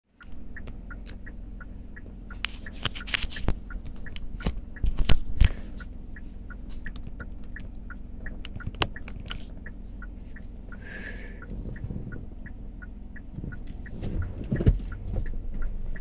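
Car engine idling, heard from inside the cabin: a steady low hum with an even, light ticking about two to three times a second. A few sharp knocks stand out around three and five seconds in.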